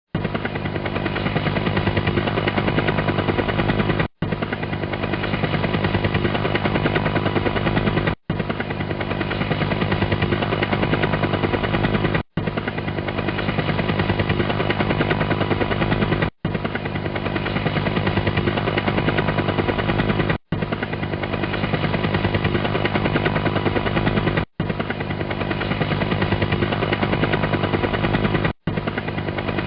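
Helicopter rotor blades beating in a rapid, steady chop. The sound drops out briefly about every four seconds and then starts again, as a short looped recording does.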